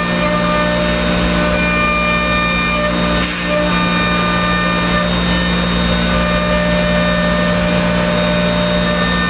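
Thermwood M-90 five-axis CNC router running, its spindle giving a steady whine of several tones over the rushing noise of the bit cutting MDF. A brief hiss about three seconds in.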